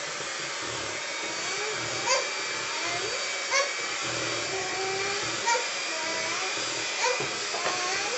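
Electric hand mixer running steadily as its beaters whip cream cheese batter and eggs in a stainless steel bowl. Four short sharp knocks are heard, spaced about one and a half to two seconds apart, as the beaters strike the bowl.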